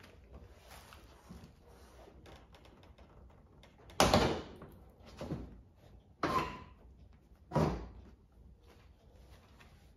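Four sharp knocks and thuds over about four seconds, the first the loudest, as the front bumper cover of a Dodge Challenger is handled and pressed into place.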